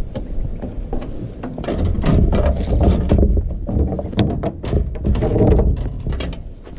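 Metal gate frame and wire fence panel rattling and knocking, with a rapid, irregular string of clicks, clanks and scrapes over a steady wind rumble on the microphone.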